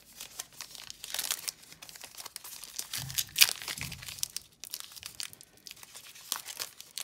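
Foil wrapper of a baseball card pack crinkling and tearing as it is pulled open by hand, in irregular crackles with the loudest a little after three seconds in. The wrapper is hard to open, with all kinds of pack struggles.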